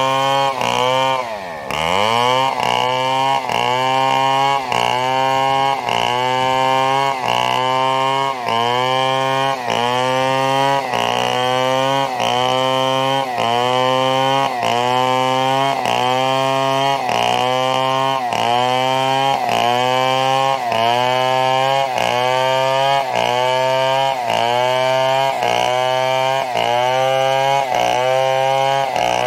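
Chainsaw running at high revs while cutting a fallen coconut palm trunk into lumber. Its pitch sags and recovers about once a second as the chain bites into the wood. About 1.5 s in, the engine drops sharply and revs back up.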